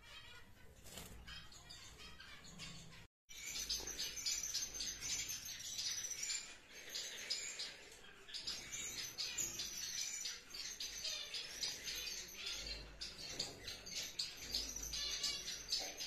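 Many caged finches chirping together: a dense, rapid run of high chirps. It is fainter for the first three seconds, cuts out for a moment, then comes back fuller and keeps going.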